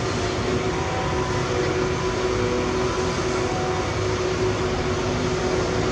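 Heavy earthmoving machinery's diesel engine running steadily, a dense mechanical din with a thin steady tone on top.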